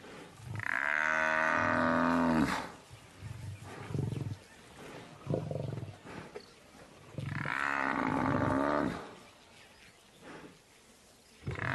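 Cape buffalo cow bellowing in distress while pinned down by lions: two long, loud bellows, one near the start and one about two-thirds through, with short low grunts between them. Distress calls that can bring the buffalo herd back.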